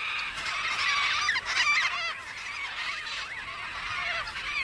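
A group of Major Mitchell's cockatoos calling, many calls overlapping.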